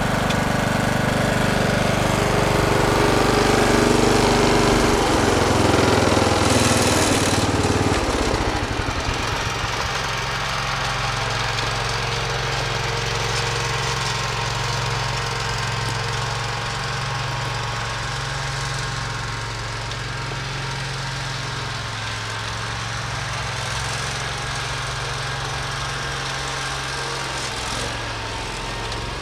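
Husqvarna Rider 17 AWD ride-on mower's engine running steadily while the machine pushes snow with its front blade. Louder for the first several seconds, then an even drone.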